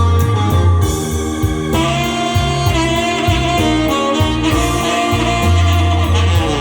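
Tenor saxophone playing the melody over a band backing track with electric guitar, bass and a steady drum beat.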